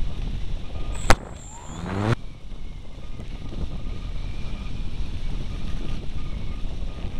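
Steady rushing flight noise of an RC glider, heard through its onboard camera's microphone. About a second in there is a single sharp click, followed by a brief whine that sweeps in pitch and cuts off suddenly about a second later.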